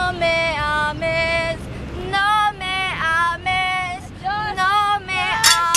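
A young woman singing solo without accompaniment: a slow melody of long held notes, some wavering with vibrato, over a low background rumble.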